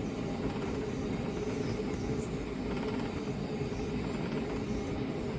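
Steady cabin noise inside a Boeing 757: an even low rumble from the engines and air conditioning, with a steady hum running through it.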